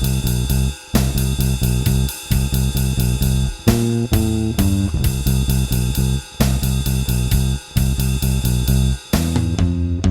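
Compressed electric bass guitar with a Seymour Duncan Designed pickup playing a repeating blues riff over a rock drum kit, with short breaks between phrases.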